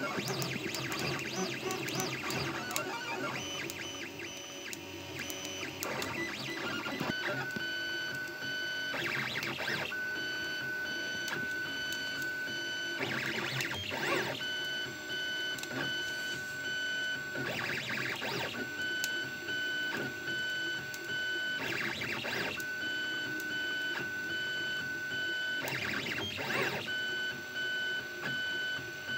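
Prusa A6 3D printer running a print, its motors making a steady high whine as the print head moves, broken about every four seconds by a short rattling burst. Guitar music plays over the first few seconds.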